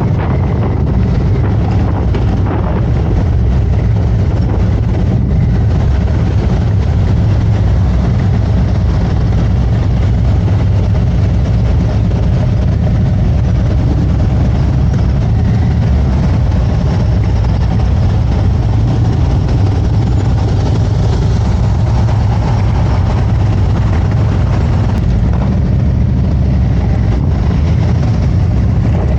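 Harley-Davidson Road Glide's V-twin engine running at a steady, even pitch while the motorcycle is ridden.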